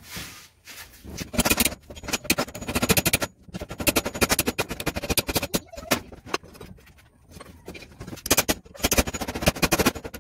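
Rapid series of hammer blows on a steel flat bar clamped in a bench vise, many strikes a second in runs with short pauses, as the bar is bent over the vise jaws.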